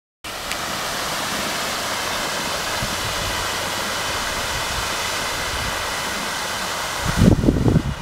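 Park fountain's tall central jet spraying and falling back into the pond: a steady hiss of splashing water. About seven seconds in the hiss drops off as the big jet stops, and gusts of wind buffet the microphone.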